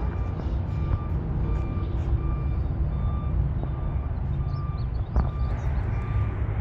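Backup alarm of a John Deere 650K bulldozer beeping steadily, about two beeps a second, over the dozer's diesel engine running.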